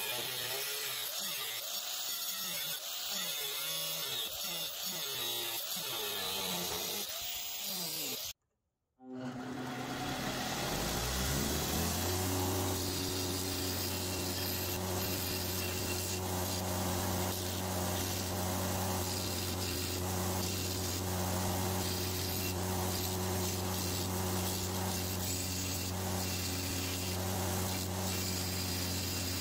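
An angle grinder with a cutoff wheel cuts into a steel blade blank, its pitch wavering under load, and stops abruptly about eight seconds in. A second later a belt grinder's motor spins up over a couple of seconds and then runs steadily as the steel blade is ground against the belt.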